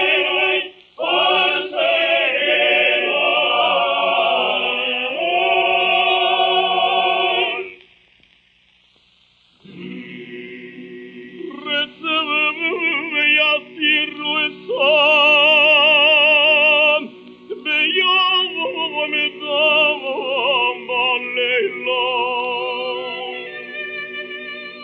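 A Jewish cantor's tenor voice singing a Hebrew prayer in ornate cantorial style on an early recording with a narrow frequency range, over sustained accompaniment chords. The singing breaks off about eight seconds in for a two-second pause, then returns with fast trilled ornaments.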